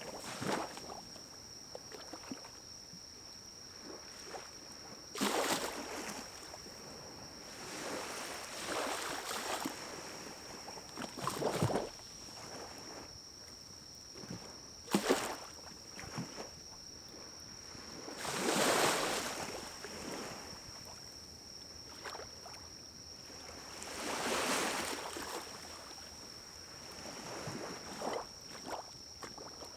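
Pine cones burning in a small wood-burning stove, crackling with scattered sharp pops and a few longer rushing swells of the fire, over a steady thin high tone.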